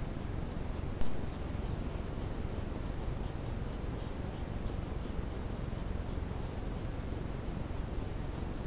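Steady low hiss and rumble from a trail camera's microphone, with faint high-pitched ticks repeating two or three times a second through the first half, and one sharp click about a second in.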